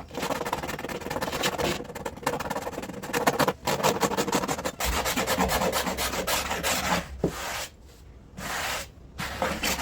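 Rapid, continuous scraping of a hand-held blade across a 1976 Pontiac Trans Am's seat back panel, scraping its surface down. It stops about three-quarters of the way through, followed by a few short scrapes.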